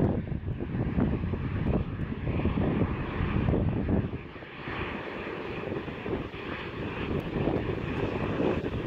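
Embraer E190's twin turbofan jet engines running as the airliner taxis in. The sound is a steady rush with a heavy low rumble that swells and dips, briefly quieter about four seconds in.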